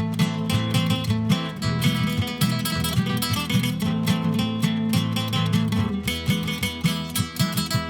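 Acoustic guitar playing an instrumental passage: a quick, steady run of plucked and strummed notes with a busy bass line, no singing.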